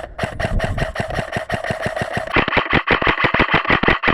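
Airsoft electric gun (AEG) firing full auto: a rapid, even stream of shots with the gearbox cycling, growing brighter and more regular about two and a half seconds in.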